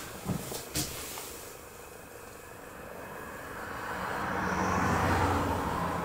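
A passing vehicle: engine and road noise swell from about halfway through to a peak near the end, then begin to fade. A couple of light knocks near the start.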